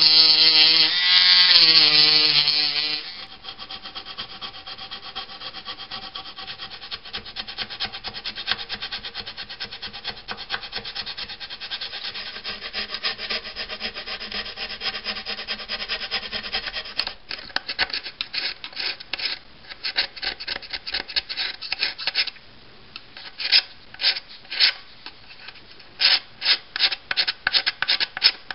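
Dremel rotary tool with a small grinding stone whining as it grinds the filler-coated edge of the helmet's eye opening, then cutting off about three seconds in. After that, a thin needle file rasps back and forth inside the eye opening in quick strokes, which become slower and more distinct in the second half.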